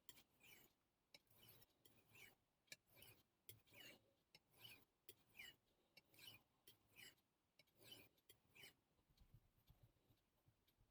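Faint, even strokes of a steel knife blade sliding back and forth on a wet Naniwa Superstone whetstone, about one stroke every 0.7 s, with a light tick now and then.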